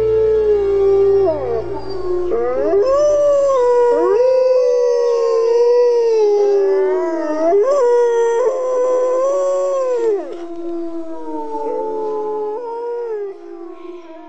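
Wolves howling: long, gliding howls that overlap and rise and fall in pitch, more than one voice at once. A low music drone underneath ends about five seconds in, and the howls fade out at the end.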